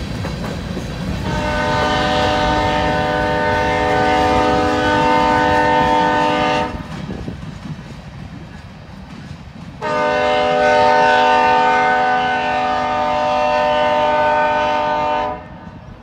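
Diesel locomotive air horn sounding two long blasts of about five seconds each, a chord of several notes, from the head of a grain train. Under the first blast, loaded covered hopper cars roll past with a clickety-clack of wheels over rail joints.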